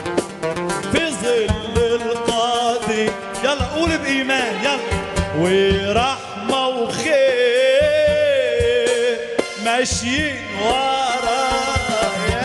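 A man singing an Arabic Christian hymn live into a microphone, accompanied by a plucked oud, the voice gliding and ornamenting between notes.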